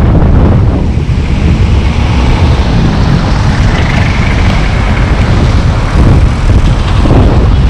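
Loud wind rumble on the microphone of a camera mounted on a moving car, with steady road noise underneath.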